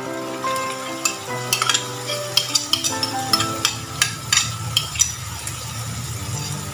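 A metal spoon clinking and scraping against a ceramic plate, a dozen or so sharp clinks between about one and five seconds in, as pounded cassava leaves are scraped off into a hot wok. Oil sizzles under the leaves in the wok.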